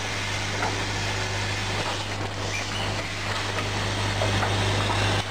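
Automatic bag-packing machine for cat litter running: a steady low hum under an even mechanical whirr and hiss, with a few faint clicks.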